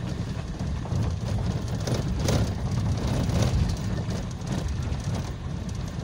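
Steady low rumble of a moving vehicle, with a few short rattles or knocks about two and three and a half seconds in.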